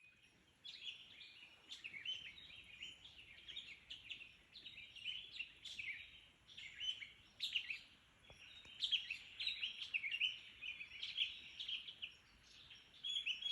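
Small songbirds chirping and singing in a dense, overlapping chorus of rapid short notes. The chorus cuts off abruptly at the end.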